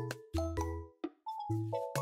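Background music: short struck notes that ring and fade over a bass line, in a steady beat, with a brief break about a second in.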